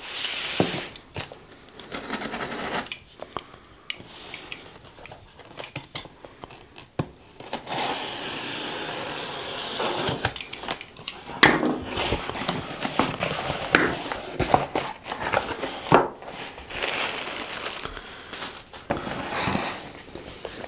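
A knife slitting the packing tape on a cardboard shipping box, then the flaps pulled open and the boxes inside handled: scratchy tearing and rustling of tape and cardboard, with many small knocks and clicks.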